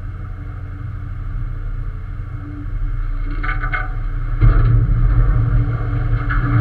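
Steady low engine drone with a constant hum, growing louder about four and a half seconds in.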